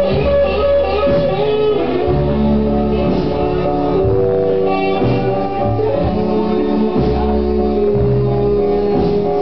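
Blues song playing, with a singer over guitar and bass.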